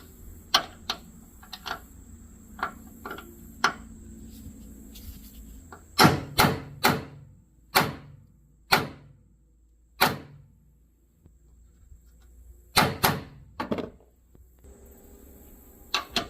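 Hammer striking a hardened steel RPT Torx T30 socket to drive it into a stripped, rusted Torx fastener head before extraction. It starts with light taps, then comes a run of about six hard strikes, and a cluster of four more later.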